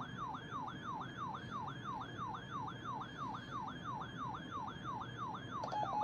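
Weather alert radio alarm sounding for a NOAA Weather Radio required weekly test: a siren-like tone that sweeps downward about three times a second. Near the end a second radio joins in with fast, even beeping.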